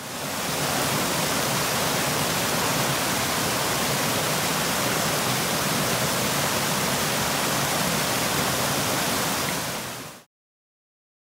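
Steady rushing hiss of a cascading waterfall, water pouring over rock ledges. It fades in at the start and stops abruptly about ten seconds in.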